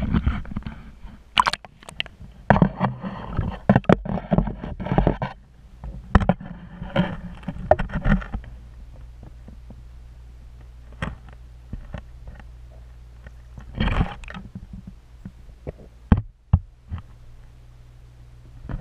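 Muffled underwater sound picked up by a submerged GoPro: a steady low hum with scattered clicks and knocks. For the first eight seconds or so there are rushes of water noise, then mostly the hum with sharp clicks and one more brief rush near the middle.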